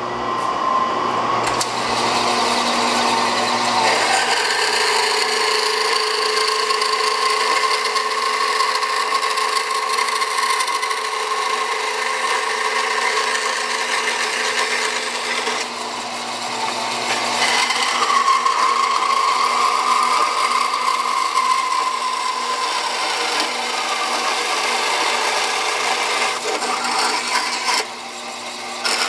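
Bandsaw running and cutting through a small piece of stainless steel: a continuous sawing whine whose pitch shifts a couple of times as the cut goes, easing off briefly near the end.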